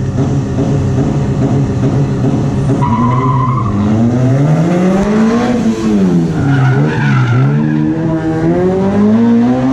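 A car's engine revving up and down several times as it is driven hard through a cone course, with short tyre squeals.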